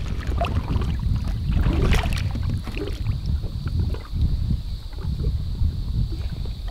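Lake water sloshing and splashing against the side of a boat as a largemouth bass is held in the water and let go, over a low rumble of wind on the microphone.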